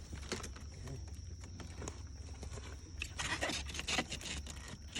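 Scattered light knocks and scrapes from handling foam ICF blocks and parts, with a quick run of knocks about three to four seconds in, over a steady low hum.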